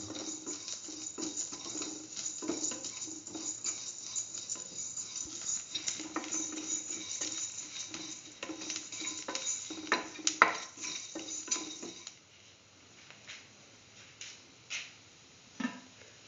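Shallots, ginger, garlic and mustard seeds frying in oil in a steel pan with a steady sizzle, while a spatula scrapes and clinks against the metal. The loudest clinks come about ten seconds in. The stirring and most of the sizzle stop about two seconds later, leaving a few scattered faint clicks.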